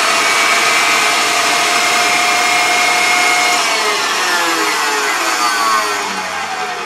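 KitchenAid stand mixer's motor and gearbox running at top speed with an empty bowl, a steady whine. About three and a half seconds in the speed control is turned down, and the whine falls steadily in pitch and gets quieter as the mixer slows toward its lowest speed.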